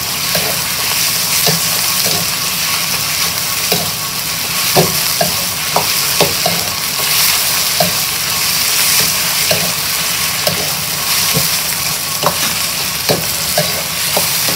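Chicken pieces sizzling steadily in a hot wok as they are stir-fried until the meat turns white all over. A metal wok ladle scrapes and clicks against the pan about once or twice a second, at uneven intervals.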